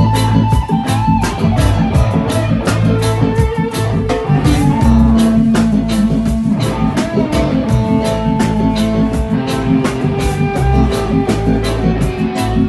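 Live band music: a guitar plays held, bending melody notes over a steady drum beat.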